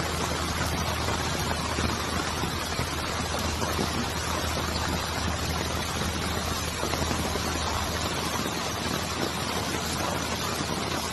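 Heavy rain pouring steadily, a dense even hiss, over a low steady hum.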